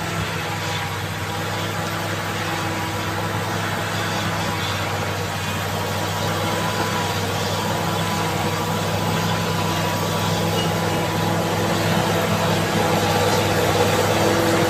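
Caterpillar D7G bulldozer's diesel engine running steadily, growing slowly louder.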